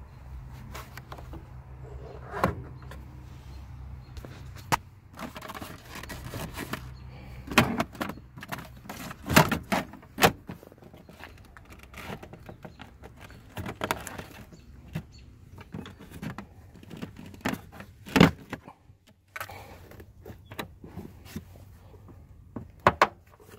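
Plastic trim pins and trunk lining panels of a car being pushed into place by hand: a run of separate sharp clicks, knocks and rustles, the loudest about 18 seconds in. A low steady hum runs under the first seven seconds or so.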